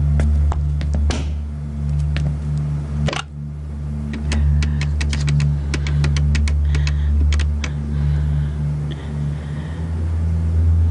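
A steady low drone runs under a series of sharp clicks and knocks. The loudest knock, about three seconds in, fits a wooden door shutting. A quick run of clicks follows between about four and seven seconds, as a landline telephone is dialled.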